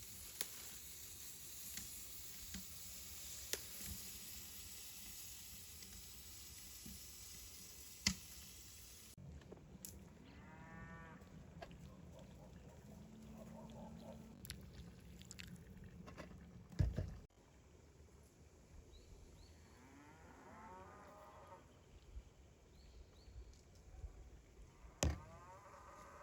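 Cattle mooing three times, in drawn-out bending calls. A sharp knock comes about two-thirds of the way through, and a steady hiss fills the first third.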